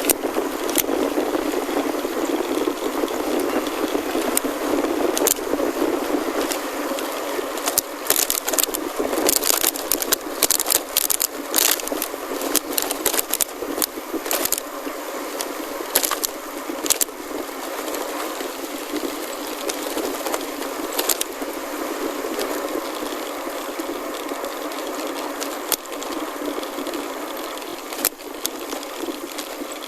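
Gravel bike rolling along a gravel forest road, heard through a phone's microphone: a steady crunch of tyres on gravel mixed with wind noise. A dense run of sharp clicks and rattles comes about 8 to 17 seconds in.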